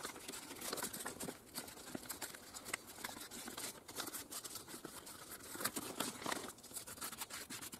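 Thin plastic foil crinkling and rustling as hands press and smooth it over wet silicone filling a boot sole: a faint, irregular crackle.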